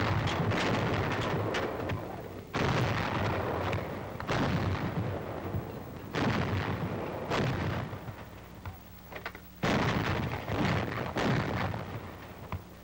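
A battery of 90mm anti-aircraft guns firing: about eight heavy gun blasts at irregular intervals of one to two seconds, each dying away over a second or so.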